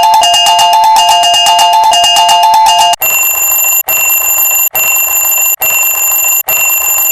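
Japanese railroad crossing warning-bell sound effect, looped and altered: a repeating two-tone alternating ring for about three seconds, then a sudden switch to a higher, steady alarm-like tone broken by short gaps about once every 0.85 s.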